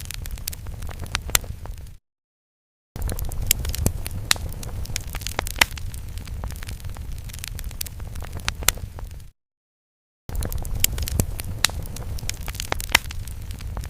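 Fire crackling: sharp pops and snaps over a low rumble. It drops to silence for about a second twice, where the sound effect loops.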